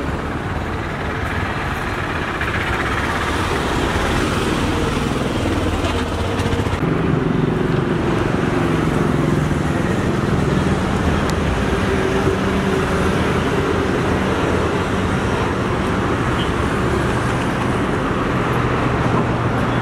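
Steady road traffic noise, with the engines of passing motor vehicles running.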